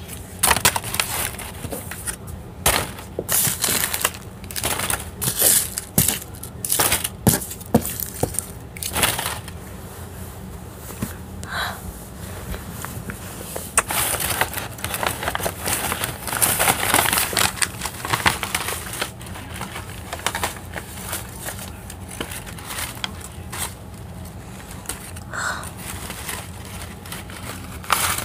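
Irregular bursts of crinkling and rustling, heavier in the first third and again in the middle, with quieter stretches between.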